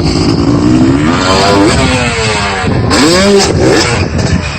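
Dirt bike engine revving, its pitch climbing and dropping twice as the throttle is opened and shut.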